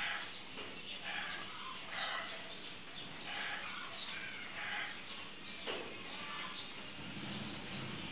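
Repeated rasping strokes of ears of white corn scraped against a metal hand grater, shredding the kernels into a plastic basin. Small birds chirp in short high calls throughout.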